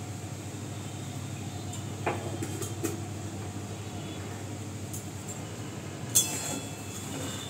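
Mustard oil and spices sizzling gently in a karahi over a steady low hum, with a few light clinks of kitchenware, the sharpest about six seconds in.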